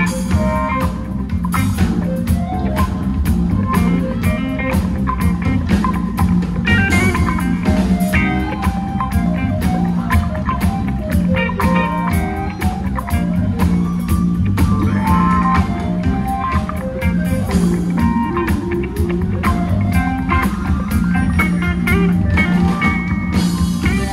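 A live band playing guitar-led blues rock with a steady beat.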